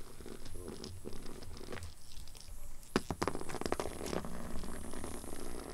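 Cat purring in the first couple of seconds, then about three seconds in a quick cluster of scratchy rasps as a cat's claws catch and drag on carpet and fabric while it paws at a small toy.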